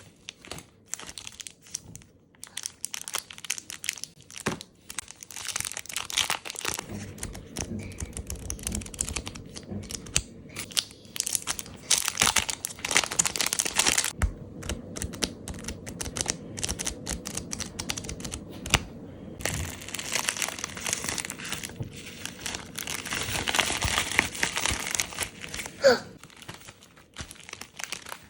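Plastic sticker sheets and their clear wrapping crinkling and rustling in the hands, in busy irregular stretches, with some tearing or peeling sounds. Near the end there is a brief, loud squeak.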